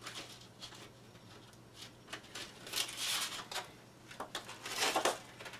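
Sheets of sandpaper being handled and rustled, in a few irregular papery rustles and scrapes, loudest about three seconds in and again near five seconds.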